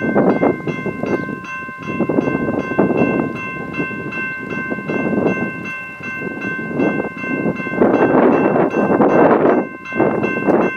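BNSF diesel locomotive's multi-chime air horn sounding one long chord of several steady notes for about eight seconds, then breaking off.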